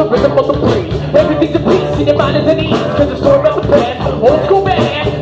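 Live rock band playing loud: electric guitar and a steady drum beat, with a singer on the microphone.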